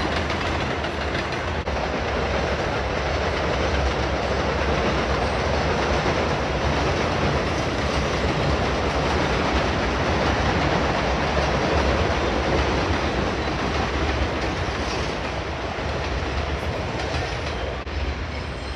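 An R188 subway train running along a steel elevated structure, its wheels on the rails making a steady, continuous noise that eases off a little near the end.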